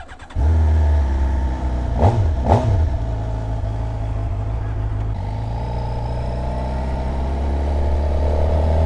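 2012 Suzuki GSX-R 750's inline-four engine running, blipped twice in quick succession about two seconds in, then pulling away with the engine note rising near the end.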